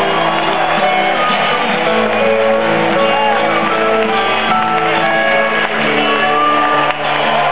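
Live rock band playing, with electric guitars and bass holding sustained notes and a few bent guitar notes.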